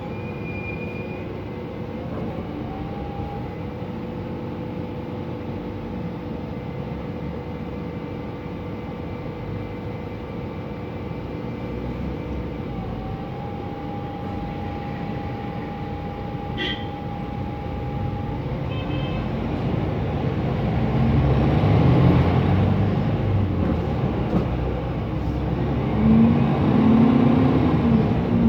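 Mercedes-Benz Conecto NGT city bus with its M 936 G natural-gas engine and its cooling fan: a steady drone with a steady whine over it. From about two-thirds of the way in, the engine note grows louder and its pitch rises and falls as the bus pulls away.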